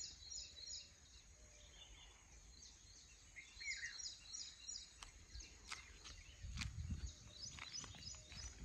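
Faint outdoor ambience of small birds chirping in the trees: quick runs of short, high, falling chirps, with one lower falling call a little before four seconds in. From about six and a half seconds, a few low thumps and sharp clicks join in.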